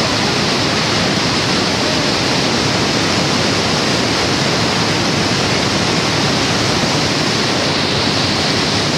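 Steady, loud rush of a large waterfall: the American Falls at Niagara pouring over the brink close to the microphone.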